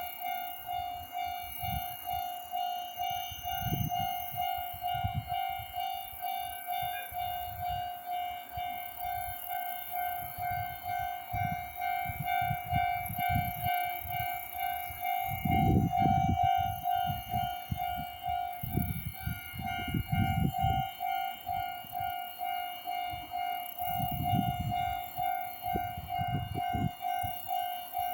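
Japanese railway level-crossing warning bell ringing steadily, a pulsing electronic clang at about two strikes a second, with irregular low rumbles underneath that are loudest around the middle.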